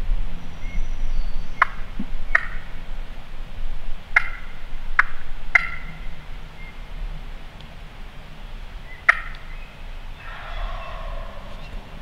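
Wild turkey calling: six short, sharp notes spread over the first nine seconds or so, then a longer rolling gobble about ten seconds in.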